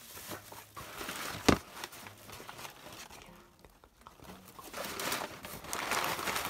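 Crumpled packing paper crinkling and rustling as it is pulled out and handled, denser near the end, with a sharp knock about one and a half seconds in.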